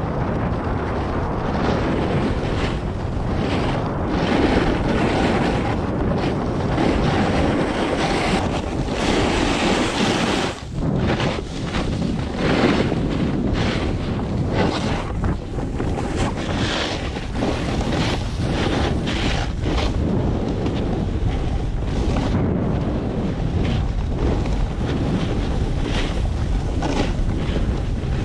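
Wind rushing over a GoPro's microphone while riding a snowboard down a groomed piste, with the board's edges scraping over the packed snow in repeated surges.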